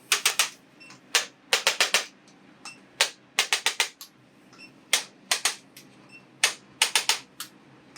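Sharp clicks in a regular repeating pattern: a single click, then a quick run of three or four, coming round about every second and a half.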